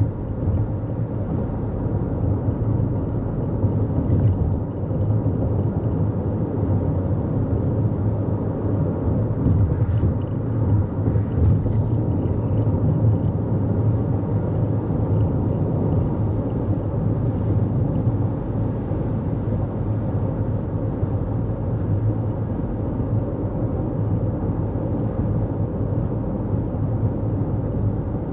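2024 Toyota Corolla Cross cruising at highway speed: a steady low rumble of tyres on the road and the car running, with no sudden changes.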